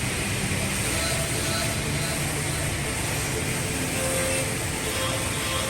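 Woodworking CNC milling and drilling machine running, a steady, even machine noise with no breaks.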